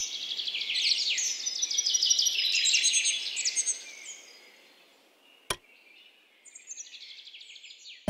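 Songbirds singing: a dense run of rapid, high chirps and trills that fades out after a few seconds, then a single sharp click, then a thinner, higher series of chirps near the end.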